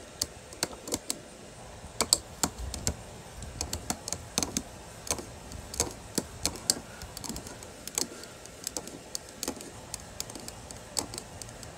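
Ceiling crank of a Winegard Sensar RV antenna being turned by hand to raise the antenna, giving a run of sharp, irregular clicks, about two or three a second, from the handle and its gear mechanism.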